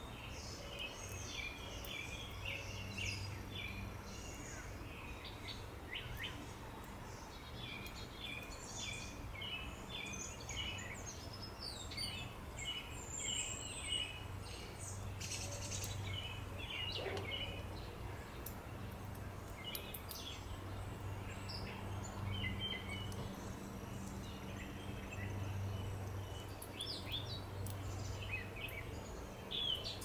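Small songbirds chirping and calling in quick runs of short, high notes, busiest in the first half and sparser later, over a low steady hum.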